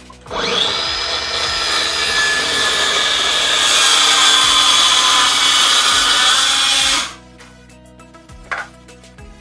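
Circular saw spinning up with a rising whine and cutting through a board, running steadily for about six and a half seconds before stopping abruptly.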